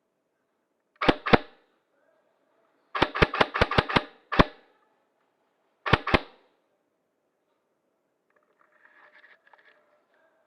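Airsoft gun firing sharp shots, each followed by a short echo: a pair about a second in, a quick string of about seven shots around three seconds in, one more shot, then another pair about six seconds in.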